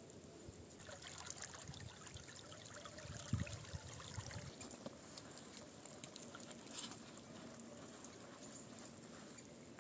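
Shallow forest stream trickling faintly, a steady watery wash with many small ticks that sets in about a second in, and a soft low thump about three seconds in.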